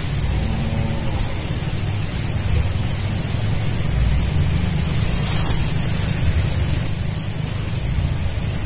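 Steady wind noise on the microphone: a low rumble with a constant high hiss above it.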